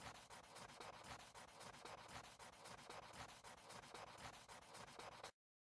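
Faint pencil sketching on paper: a rapid run of short strokes that cuts off abruptly near the end.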